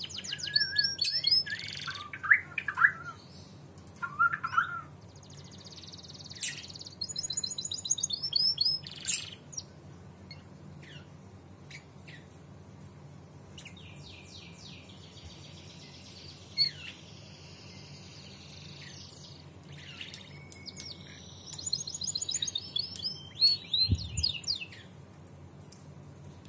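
Domestic canary singing in bursts of rapid high trills and chirps, with a quieter gap of a few seconds in the middle. A brief low thump comes near the end, over a steady low hum.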